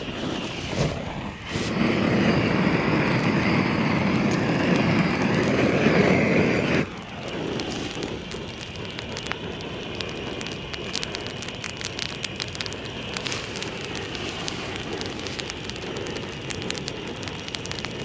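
A propane flame weeder torch burns with a steady rush for about five seconds and then shuts off abruptly. Dead dry grass then crackles as it burns in small flames, with many sharp little pops.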